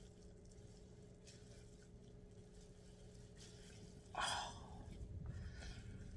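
A person breathing in sharply once through a washcloth held over the face, about four seconds in, over a faint steady hum.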